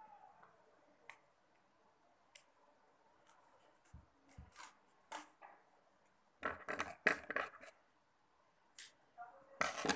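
Transparent sellotape and cardboard being handled on a tabletop, with short scratchy crackles of tape being pulled and pressed down. There are a couple of soft knocks on the table about four seconds in, then louder bursts of crackling around seven seconds and again near the end.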